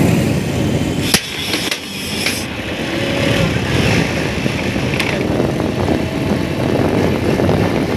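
Escorts Rajdoot two-stroke motorcycle running on the move, under heavy wind noise on the microphone, with a sharp click about a second in and another about five seconds in.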